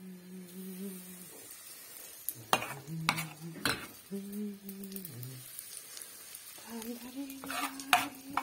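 Metal spoon stirring and scraping zucchini batter in an enamel bowl, with a few sharp knocks of the spoon against the bowl in the middle and two more near the end. A woman hums a tune in long held notes, and frying in the pan sizzles faintly.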